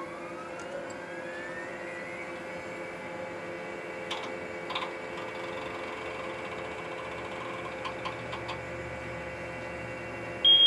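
Electronic whirring hum, an edited-in 'processing' sound effect: it rises in pitch over the first few seconds, then holds steady, and ends with a loud high beep near the end.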